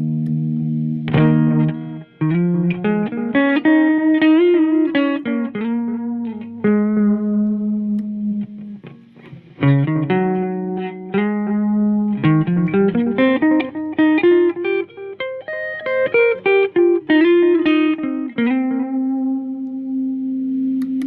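Fender Stratocaster electric guitar through a Keeley Caverns delay pedal, playing rising and falling single-note runs with the delay repeating the notes. There is a short lull partway through, and a held chord rings out near the end.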